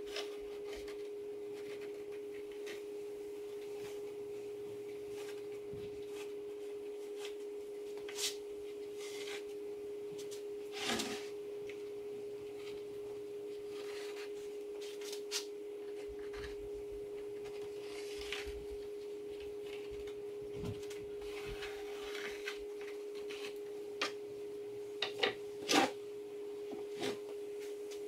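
Pine boards being handled on a wooden workbench: a few scattered light knocks and rubs as they are slid and set down, with a quick cluster of sharper knocks near the end. A steady, even hum of a single tone runs underneath throughout.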